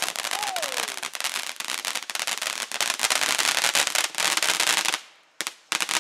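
Ground firework fountain throwing sparks with a dense, rapid crackle of small pops. It cuts off about five seconds in, then after a couple of single pops the crackling starts again near the end.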